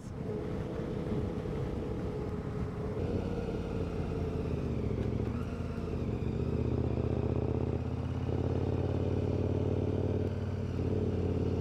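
KTM 1090 Adventure R's V-twin engine running at low road speed with a steady note; the engine tone shifts about three seconds in.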